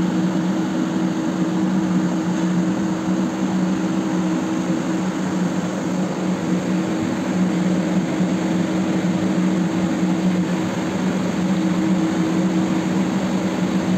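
Steady machinery hum of a ship's engine room: a constant drone with two held low pitches over a broad rushing noise, unchanging throughout.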